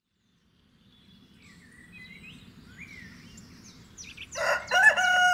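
Small birds chirping faintly, then a rooster crows loudly about four seconds in, one long call that runs on past the end, over a low background rumble.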